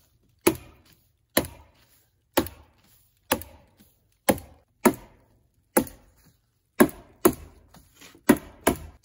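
Hammer tacker stapling house wrap to the wooden framing of a door opening: about eleven sharp single strikes, roughly one a second.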